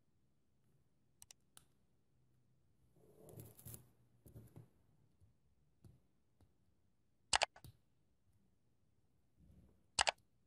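Plastic building bricks being fitted together by hand: a few faint ticks, a soft rustle of fingers and plastic about three seconds in, then two sharp clicks as pieces snap onto the studs, one about seven seconds in and the loudest near the end.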